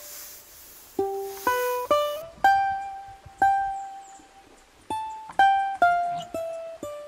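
Background music: a slow plucked-string melody, single notes struck one at a time and left to ring out.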